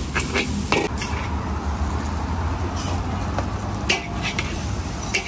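Metal spatula clanking and scraping in a wok while noodles are stir-fried. There are a few sharp clanks near the start and two louder ones about a second apart near the end, over a steady low rumble.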